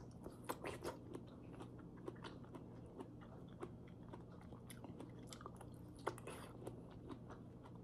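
Faint, soft, wet chewing of a jarred yellow peach half, with small mouth clicks and smacks throughout and a few sharper ones near the start and about six seconds in.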